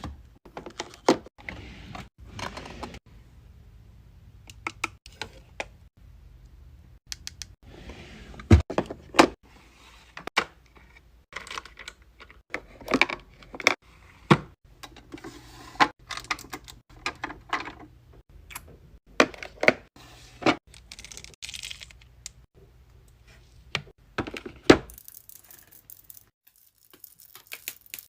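Makeup items handled close to the microphone: irregular clicks, taps and knocks of cases and lids, broken by short spells of rubbing.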